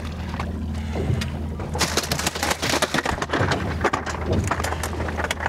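Boat on open water: a steady low motor hum, joined about two seconds in by a dense run of knocks and splashy noise.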